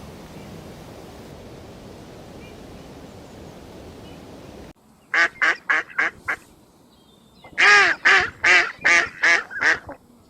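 Steady outdoor background noise, then after an abrupt cut two quick runs of loud, nasal honking calls from waterfowl, about six and then about seven.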